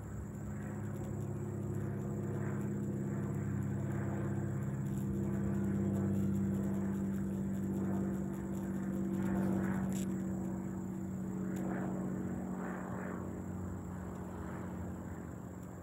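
Cessna 305A Bird Dog's six-cylinder Continental O-470 piston engine and propeller droning as the plane flies over. The drone swells to its loudest around the middle and fades toward the end.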